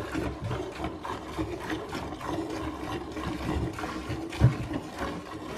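Hand milking a cow into a stainless steel pail: a rhythmic series of short squirts of milk striking the pail and the milk already in it. A low thump about four and a half seconds in is the loudest sound.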